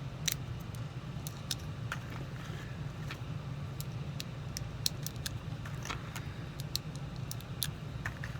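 .22 Long Rifle cartridges being pressed one by one into a Walther TPH pistol magazine: a run of small, irregular metallic clicks over a steady low hum.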